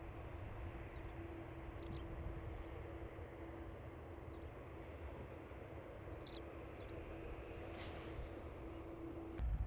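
Small birds chirping briefly several times over a steady low outdoor rumble with a constant hum. Just before the end a much louder low rumble cuts in suddenly.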